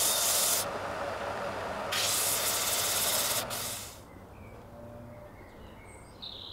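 Bench belt sander running while a small wooden part is pressed against the abrasive belt twice, each a loud hiss of a second or so. The sander then stops about four seconds in.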